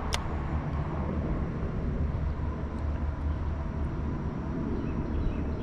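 Steady low rumble with an even hiss over it, outdoor background noise on a body-worn camera mic, with one sharp click right at the start.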